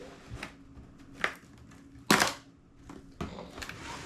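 Cardboard box and its packaging being handled and opened: a few short rustles and scrapes, the loudest about two seconds in.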